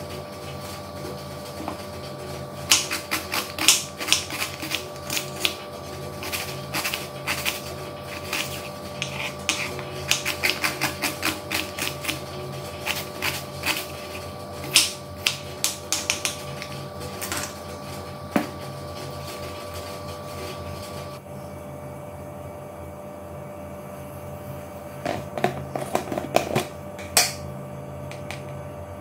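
Kitchen knife chopping an onion on a wooden cutting board: quick, uneven knocks of the blade hitting the board, several a second, in runs with short pauses. A steady hum runs underneath.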